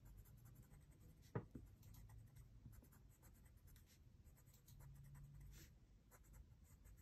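Faint scratching of a colored pencil on paper in short, quick scribbling strokes, with a single light tap about a second and a half in.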